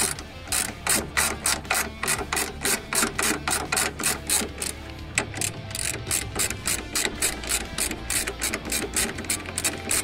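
Hand ratchet clicking in a rapid run of about four or five clicks a second as it is swung back and forth on a socket and extension, backing off the top strut-mount nuts of a front shock absorber.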